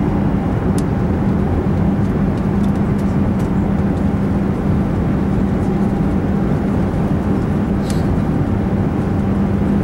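Steady roar inside the cabin of an Airbus A380 on landing approach: engine and airflow noise with a constant low hum.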